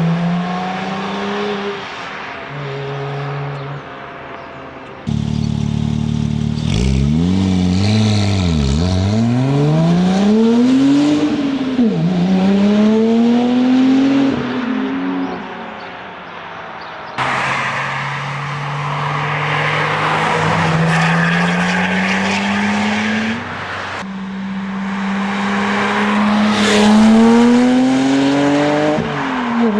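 Porsche 996 Turbo's twin-turbo flat-six running through a valved high-flow catted exhaust and sport headers, revving and accelerating. Its pitch climbs, drops back and climbs again several times. The sound changes abruptly a few times as one clip gives way to the next.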